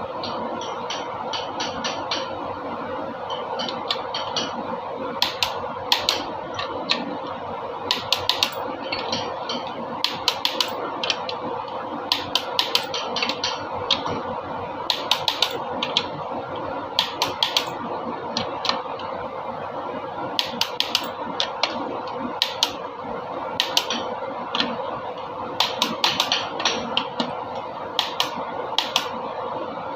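Clusters of sharp metallic clicks and taps, several in quick succession and repeating every second or two, from hand tools working on engine parts. A steady hum runs underneath.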